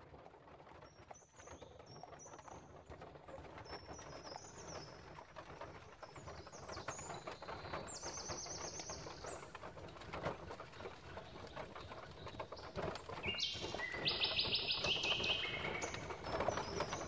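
Birdsong ambience: small birds chirping and giving quick trills over a steady background noise. It fades in from silence and grows louder, with the loudest run of trills near the end.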